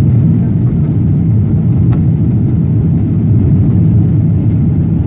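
Steady low rumble of a jet airliner's engines at climb power, heard from inside the cabin just after takeoff. A faint click about two seconds in.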